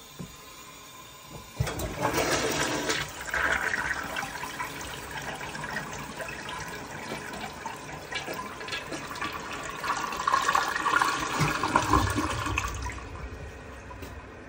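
1991 Kohler Wellworth toilet flushing properly: a sudden start about a second and a half in, then water rushing and swirling through the bowl, a second louder surge around ten seconds in, and the flow dying down near the end.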